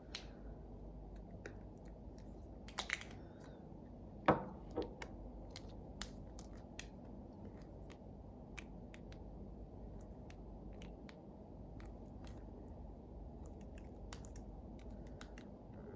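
Small clicks and taps as a replacement iPhone X screen is pressed down into the phone's frame, with one sharper click about four seconds in, over a low steady hum.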